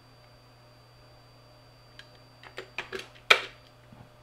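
Computer keyboard keystrokes: a short run of clicks in the second half, the last and loudest about three and a half seconds in as the command is entered. A steady low hum with a faint high whine lies under it.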